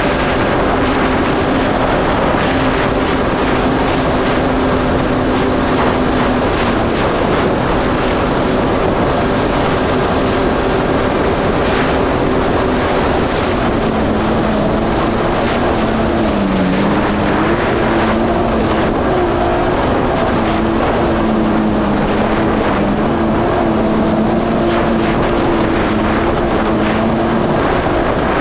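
Yamaha GP1800R SVHO jet ski's supercharged four-stroke engine running steadily under way, with a continuous rush of wind and water. Its pitch drops slightly about halfway through and then wavers a little.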